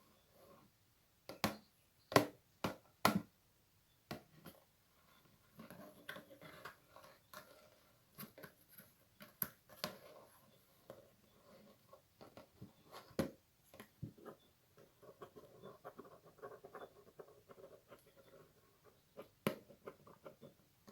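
Close-up ASMR rustling: soft, irregular rustling with scattered sharp crackles, several of them bunched together a couple of seconds in.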